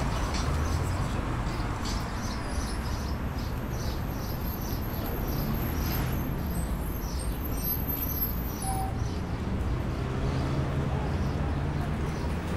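City street ambience: a low, steady traffic rumble under a bird's short high chirps, repeated about two to three times a second and fading out about nine seconds in.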